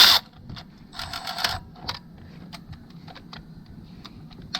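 Ratchet wrench clicking in a short quick run as bolts are snugged down, followed by scattered light metallic clicks.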